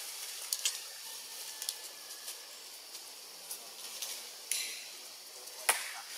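Outdoor ambience: a steady high hiss that swells suddenly a little past the middle and then eases off, with a few sharp clicks. The loudest click comes near the end.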